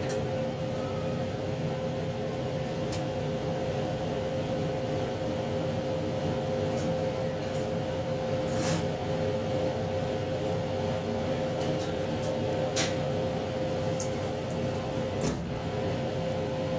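Inside a 2700 series diesel limited-express train running on the line: a steady drone of engine and running gear with a constant whine, and a few sharp clicks from the wheels and track.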